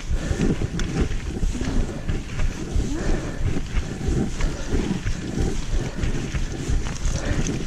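Wind buffeting an action camera's microphone: a loud, uneven low rumble.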